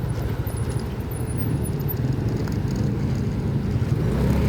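Steady low rumble of a vehicle's engine and road noise while driving.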